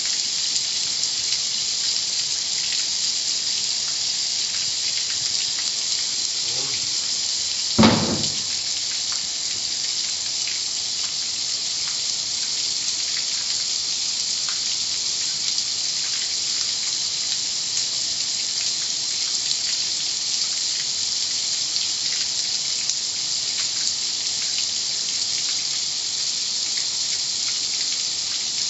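Steady hiss of water spraying at a car wash, with one brief loud thump about eight seconds in.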